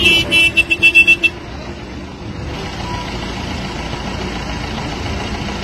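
A rapid run of about eight short, high beeps in the first second or so, like a vehicle's warning hooter sounded in pulses. It gives way to a steady din of vehicle engine and street noise.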